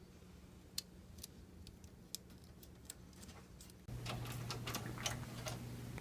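Faint, irregular clicking of a ratcheting screwdriver as a case-fan screw is driven in, coming thicker and louder near the end.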